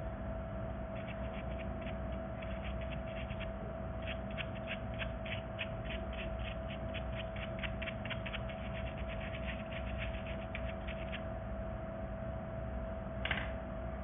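Small stiff plastic brush scrubbed over the pleats of a handheld vacuum cleaner's cartridge filter: a rapid run of scratchy strokes, about three to four a second, that stops after about eleven seconds. One short louder sound comes near the end, over a steady faint hum.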